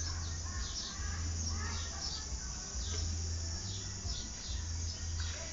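Birds calling, with short falling chirps repeating every half second or so, over a steady low rumble.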